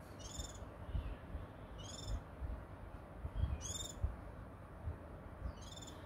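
A small songbird singing a short, high-pitched phrase four times, about every second and a half to two seconds. Irregular low rumbling thumps run underneath.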